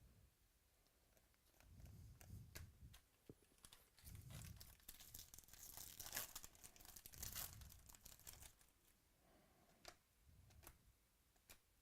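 Trading card pack wrapper being torn open and crinkled, with light clicks of cards being handled; faint, in several short rustling stretches, the busiest a few seconds in.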